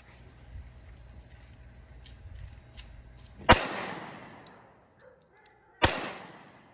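Two shots from a Glock 29 subcompact pistol firing 10mm Auto 200-grain bear loads, about two and a half seconds apart, each ringing out and dying away over about a second.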